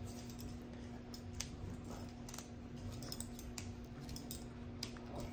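Faint scattered clicks and rubbing as a rubber chair tip is pushed onto the end of a vinyl-wrapped PVC pipe, over a steady low hum.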